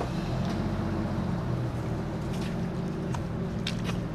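A 4x4's engine running at steady revs, with a few light clicks in the second half.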